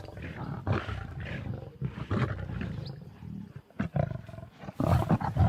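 Several lions snarling and growling in short, irregular bursts as they squabble over a warthog carcass at a kill.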